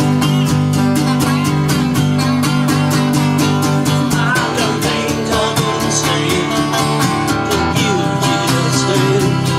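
Country-style acoustic guitar music, strummed in a steady rhythm.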